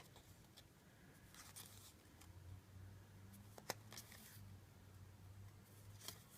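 Near silence with faint, brief rustles and a light click or two as trading cards and booster-pack wrappers are handled, over a faint low hum.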